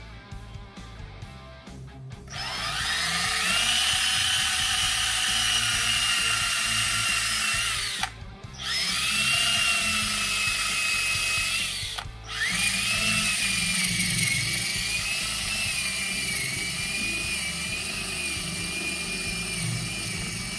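Cordless drill driving a dull 1 1/4-inch spade bit into ipe hardwood: it starts about two seconds in with a rising whine as the motor spins up, and runs in three stretches with two brief stops. The dull bit is barely cutting, grinding the hard wood to powder and burning it rather than throwing shavings.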